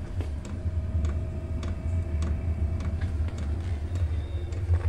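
Chinese diesel air heater running just after lighting: a steady low roar from its burner and fan, with the diesel fuel pump ticking about twice a second.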